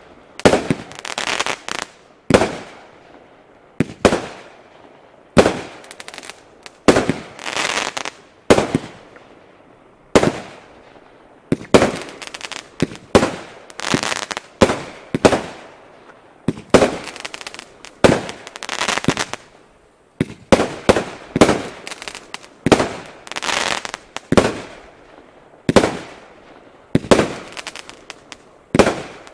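Pyrotrade PT565 Vanadium firework cake (30 shots, 25 mm tubes) firing shot after shot, about one every second or so. Each shot is a sharp report followed by a hissing, crackling tail that fades away.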